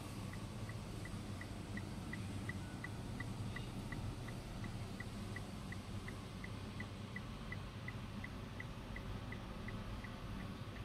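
Rapid, evenly spaced short high beeps, about three a second, from the Mitsubishi Montero Sport's electronic cabin beeper, faint over a low steady hum.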